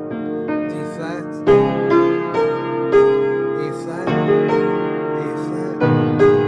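Piano playing slow, held chords, a new chord struck about a second and a half in, again around four seconds and near the end.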